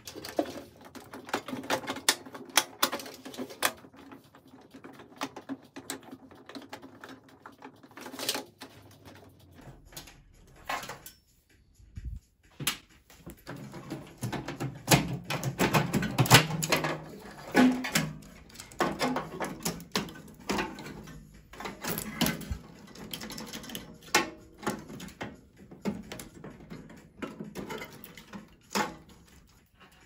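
Irregular runs of sharp clicks, taps and clatter from hand tools and sheet-metal parts as a scrap microwave oven is taken apart, with a short pause about a third of the way in.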